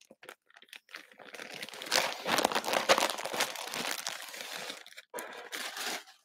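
Clear plastic bag with a jersey inside crinkling as it is handled. Light scattered rustles at first, then dense crinkling for about four seconds. It stops briefly just after five seconds, then one last short crinkle.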